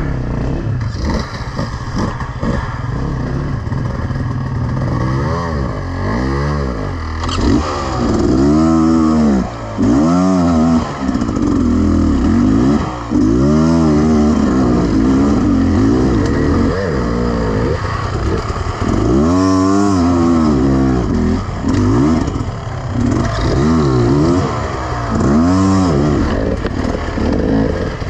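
Beta Xtrainer 300 two-stroke enduro motorcycle engine revving up and down in repeated short bursts of throttle, pitch rising and falling every second or two, with the throttle shut off briefly a couple of times.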